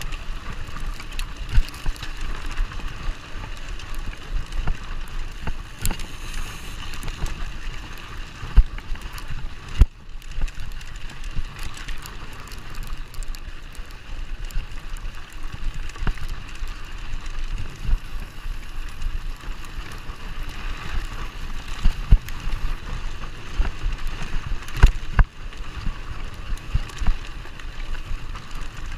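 Mountain bike riding fast on a dirt trail: a steady rush of tyre and wind noise, with frequent sharp knocks and rattles as the bike jolts over bumps.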